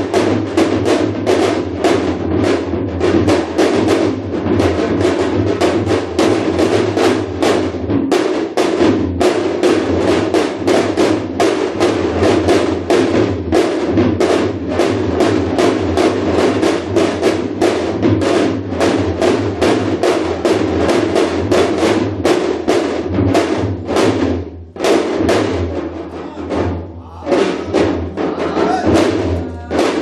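Korean janggu (hourglass drum) played in shamanic ritual (musok) style: fast, dense drum strokes that break off briefly a few times near the end.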